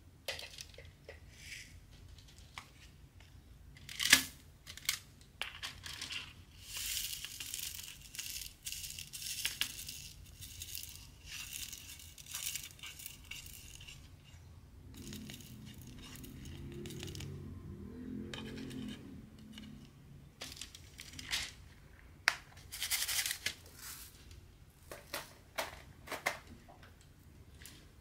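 Hand diamond painting: sharp clicks and taps of a drill pen picking up diamond drills and pressing them onto the adhesive canvas, with stretches of rustling and scraping. A faint low hum for a few seconds midway.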